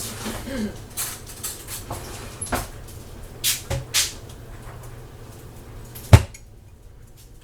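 Kitchen utensils clinking and knocking as a spoon skims the top of a pot of simmering chicken stock: a string of light clicks, then one loud knock about six seconds in.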